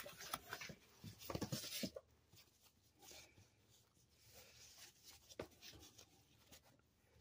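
Faint rustling and scraping of a cardboard shipping mailer being handled and opened, mostly in the first two seconds, then a few soft taps and clicks.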